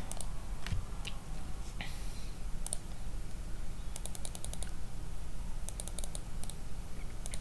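Computer keyboard typing: scattered keystrokes, with quicker runs about halfway through and again near the end, over a low steady hum.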